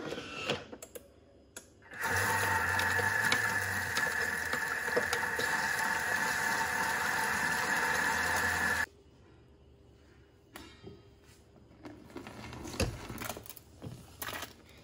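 Thermomix motor spinning its blade at speed in the bowl of water, dishwashing liquid and eggshells on pre-clean mode, a loud steady whine with whooshing churn that starts about two seconds in and cuts off suddenly about nine seconds in. Clicks and knocks come before and after it.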